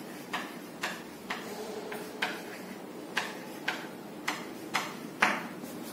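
Chalk writing on a chalkboard: a string of about eleven sharp taps, roughly two a second and unevenly spaced, as the chalk strikes the board with each stroke of a word.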